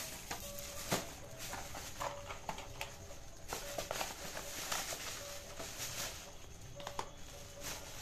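Plastic bags of Holi colour powder and small cardboard boxes of colour being handled and set down on a tiled floor: irregular crinkling and rustling of plastic with light taps and knocks.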